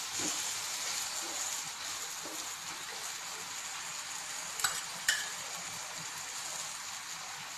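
Raw mango pieces and spices frying with a steady sizzle in oil in a kadhai while a wooden spatula stirs them. Two sharp knocks come about halfway through.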